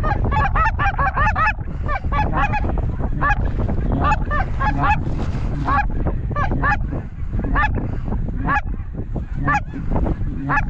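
A flock of geese honking: many short, arched calls overlapping one another, thinning out a little past the middle, over a steady low rumble.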